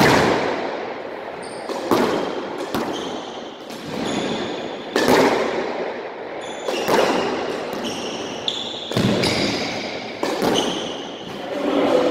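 Squash ball rally: the ball is struck by racquets and smacks the court walls about every one to two seconds, each hit echoing around the court, with short high squeaks of sneakers on the wooden floor in between.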